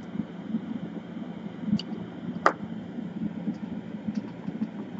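Soldering fume-extractor fan running with a steady low hum. A faint tick comes just under two seconds in and a sharper click about half a second later.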